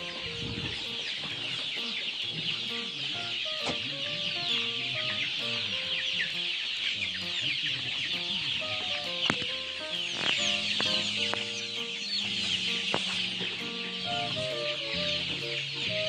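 A large flock of young chicks peeping continuously, many high chirps overlapping into a constant chorus. Background music plays underneath.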